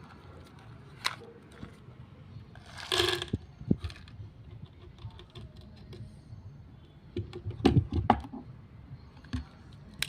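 Air gun being handled: scattered mechanical clicks and knocks, a short hissing burst about three seconds in, and a cluster of louder knocks about eight seconds in.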